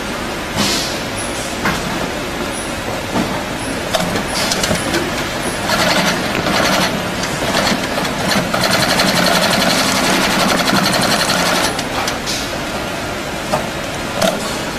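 GR-268 double-thread inseam sewing machine stitching a shoe: it runs in short bursts of rapid needle strokes, the longest lasting about three seconds past the middle, over a steady hiss, with scattered clicks.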